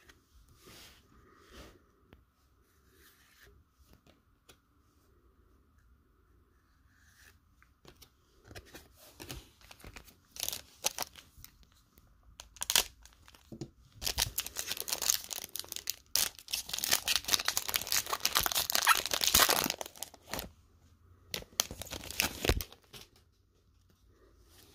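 A 2019 Panini Contenders Football trading-card pack's wrapper crinkling and tearing open. It starts as scattered crackles and grows into a long, loud stretch of crinkling and ripping that stops a couple of seconds before the end.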